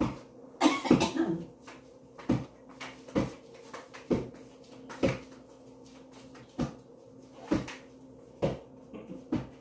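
A series of sharp knocks or clacks, irregularly spaced about once a second, over a steady low hum.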